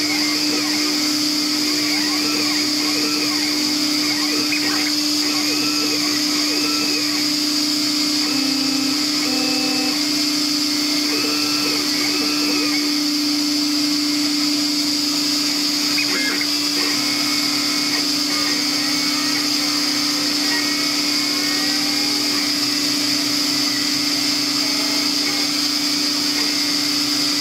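A vacuum table's suction motor runs with a steady whine. Over it, the CNC router's stepper motors sing in short rising and falling pitches as the gantry moves the laser head through curves while cutting.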